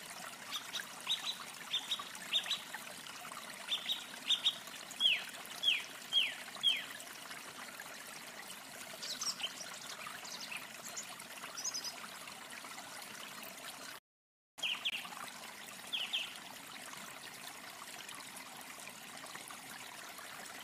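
Steady trickling of running water, with a string of short, high chirps falling in pitch over it, several in the first seven seconds and a few more later. The sound cuts out for about half a second after fourteen seconds.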